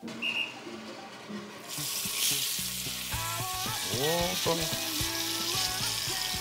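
Bone-in beef steak sizzling as it sears in a hot frying pan, a steady hiss that comes in about two seconds in.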